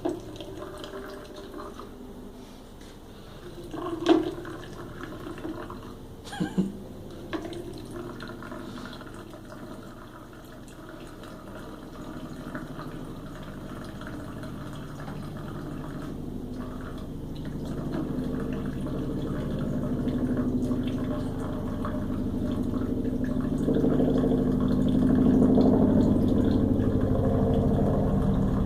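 Water running from a tap into a bathroom washbasin, getting steadily louder through the second half, with a few sharp knocks about four and six seconds in.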